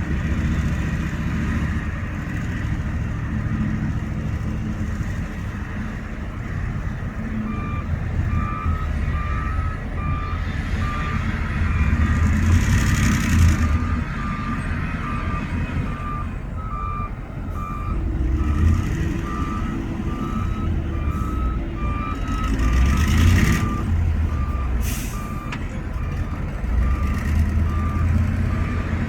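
Heavy diesel earthmoving machinery running under load, with a reversing alarm beeping steadily from about a quarter of the way in. Two short hissing bursts of air come partway through.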